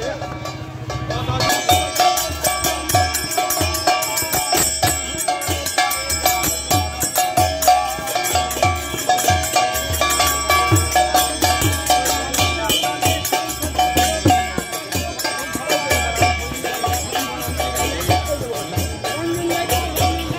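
Devotional procession music: a steady drum beat of about two strokes a second under a fast, high shimmer of small metal percussion and a held melody line.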